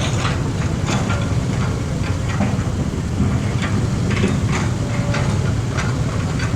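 A heavy engine running steadily with a deep rumble, with frequent irregular clanks and knocks on top.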